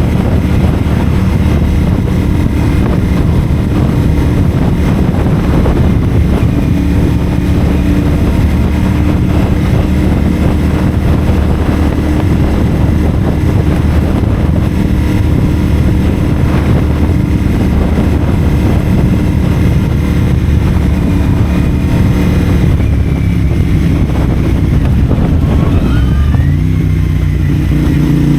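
CFMoto 450SR parallel-twin engine through a Yoshimura AT2 slip-on exhaust, running at a steady cruise with wind rush over the helmet camera. Near the end the engine note drops and settles at a new pitch.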